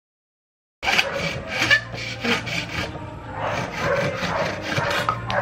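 Hacksaw cutting through a green bamboo stem in repeated back-and-forth strokes. The sawing starts just under a second in, after a moment of dead silence.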